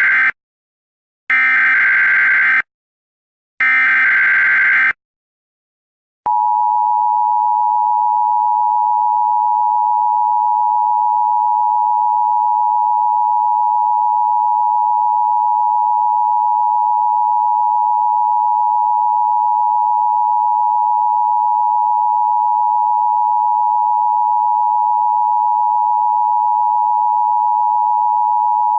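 Emergency Alert System header data bursts: harsh, buzzy digital screeches about a second long, the first already sounding and two more following. After a second of silence, the NOAA Weather Radio warning alarm tone starts about six seconds in: a single loud steady tone near 1 kHz, held unbroken.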